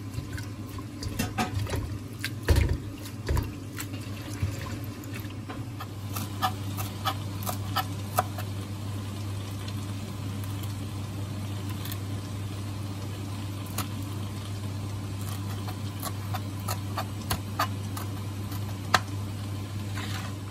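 Water splashing and dripping as fresh coriander is swished and soaked in a bowl of water to wash it. There are many short splashes and clicks over a steady low hum.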